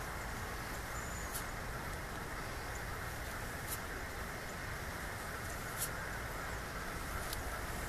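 Steady outdoor background hiss with four faint, sharp ticks spread through it.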